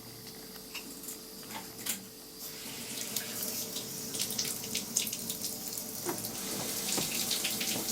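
Water running from a bath mixer fitted with a new valve cartridge, the flow growing louder about two and a half seconds in. The mixer runs without the humming its worn cartridge caused.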